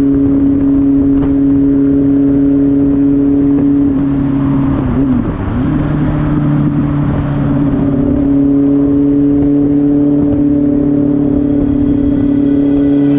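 Honda CBR600F3's inline-four engine running steadily at highway speed over a rush of wind and road noise, picked up by a camera strapped to the seat. About five seconds in, the engine note briefly drops in pitch and level, then comes back to its steady pitch.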